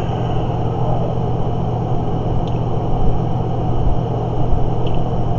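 Steady low hum with constant rumbling noise underneath, unchanging throughout, with a couple of faint ticks.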